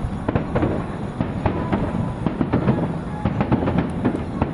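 Aerial fireworks shells bursting in quick succession: a dense, irregular run of booms and sharp cracks, several a second, over a continuous low rumble.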